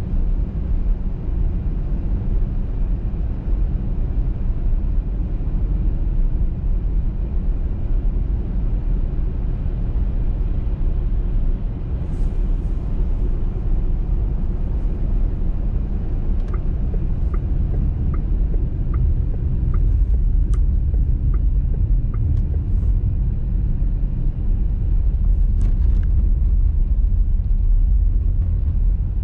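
Steady low rumble of a car driving on a snowy motorway. Midway, a turn-signal indicator ticks about eight times, a little under a second apart.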